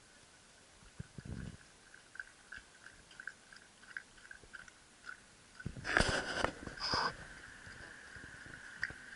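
Shiba Inu lapping water from a stainless-steel bowl: small wet laps about two a second, then a louder burst of lapping and knocking against the metal bowl about six seconds in.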